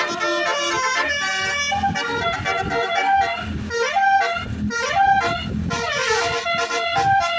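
Tour bus's basuri horn, the Indonesian musical 'telolet' horn, playing a reedy melody of changing notes, with a few sliding notes about halfway through.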